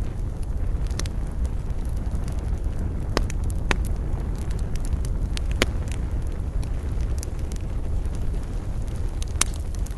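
Campfire burning with a steady low rumble and scattered sharp crackles and pops of burning wood, a few louder pops about three, four, five and a half and nine seconds in.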